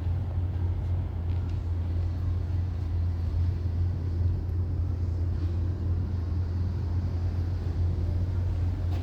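A steady, unchanging low hum with a rumble, like machinery running.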